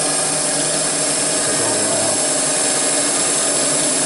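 CNC mill running a back-boring cut: the spindle and inverted boring head turning steadily as the tool circles under the thrust face of a Subaru engine block, with coolant or air blast hiss. The whirring and cutting noise is even throughout, with a steady hum of several faint tones.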